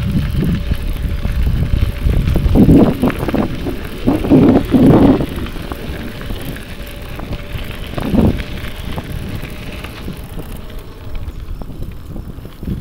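Wind buffeting the microphone over the rumble of a bicycle rolling along a trail, with louder gusts about three seconds in, again around four to five seconds, and once near eight seconds.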